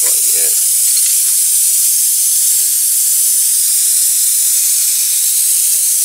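Steady high hiss of nitrogen escaping through an open, reamed puncture hole in a car tire: the tire is slowly deflating.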